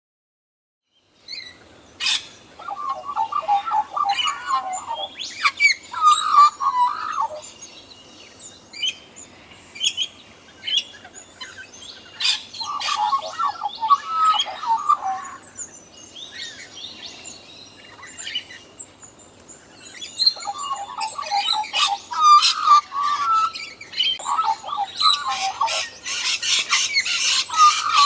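Australian magpies carolling: warbling song phrases of a few seconds each, repeated every few seconds, with higher chirps in between and a dense run of high chirping near the end.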